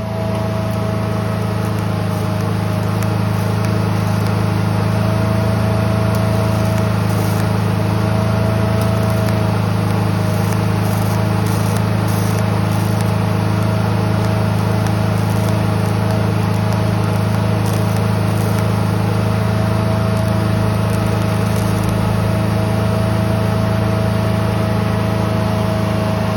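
Daihen MINIPULSE 150 DC inverter TIG welder running: a steady low hum with one thin steady whine over it.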